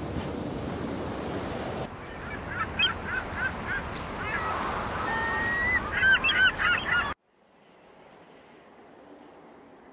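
Wind and surf noise, then geese honking: a run of short repeated calls, one longer call, and a dense, loud burst of honks near the end. The sound cuts off abruptly at about seven seconds, leaving only a faint hiss.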